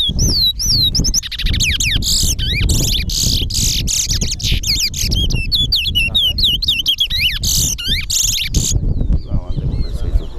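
Caged towa-towa finches (chestnut-bellied seed finches) singing in a song race: fast, continuous whistled warbling with sliding notes, stopping abruptly about nine seconds in, over a low background rumble.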